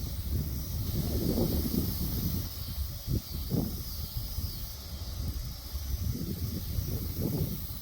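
Gusty storm wind buffeting the microphone in uneven surges, over a steady high hiss of wind outdoors.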